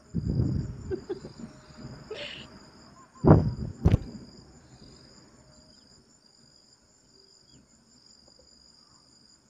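Steady, high, pulsing cricket-like chirping throughout. It is broken in the first four seconds by loud muffled bursts close to the microphone and one sharp knock about four seconds in.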